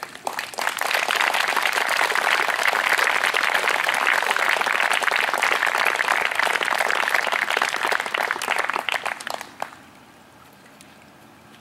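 A group of onlookers applauding, a dense steady clapping that starts about half a second in and dies away quickly after about nine seconds.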